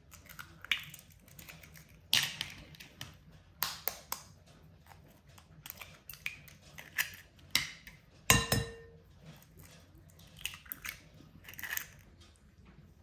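Food-preparation handling sounds: irregular knocks, clicks and scrapes of cookware and utensils, with one louder clink about eight seconds in that rings on briefly.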